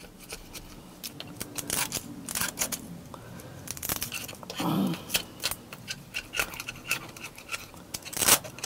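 Hand scraper scratching at the metal thermostat mounting surface of a MerCruiser 5.0 V8, mixed with the rustle of a rag packed into the opening. The scraping and rustling come in short, irregular strokes.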